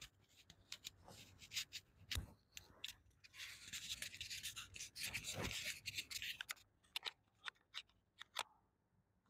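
Faint, patchy rustling and scratching with many small scattered clicks and ticks, the sound cutting in and out between them.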